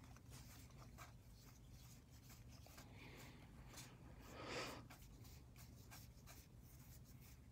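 Faint rubbing and small flicks of cardboard baseball cards sliding against each other as a stack is fanned through by hand, with one slightly louder shuffle about four and a half seconds in.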